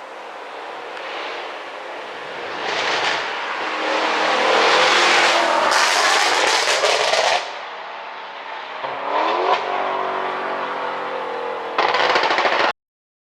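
Maserati Quattroporte GTS twin-turbo V8 exhaust revving up several times. Sharp pops and crackles on the overrun come from its pop-sound ECU tune. The sound cuts off abruptly near the end.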